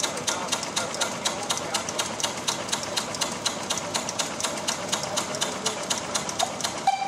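A machine clicking steadily and quickly, about six or seven sharp clicks a second, with a short tone sounding briefly near the end.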